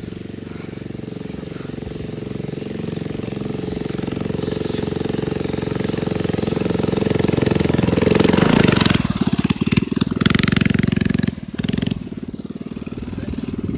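Mini bike's small engine running under throttle, growing steadily louder to its loudest about eight to nine seconds in, then revving up and down with a brief drop in throttle near the end.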